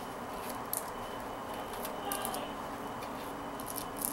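Plastic kandi beads clicking faintly now and then as they are picked off the cut thread of a peyote-stitch panel by hand.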